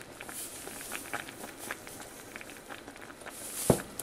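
Pot of pinto beans boiling, with many small bubbling pops. A single sharp knock sounds near the end.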